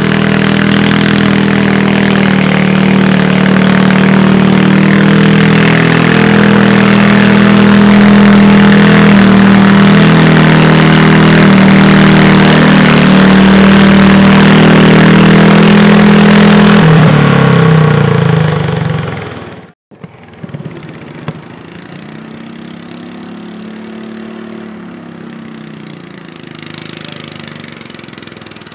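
Modified pulling garden tractor's engine running hard and steady under load as it drags the weight sled, then dropping in pitch as it winds down. After an abrupt cut, a quieter engine rises and falls in pitch once.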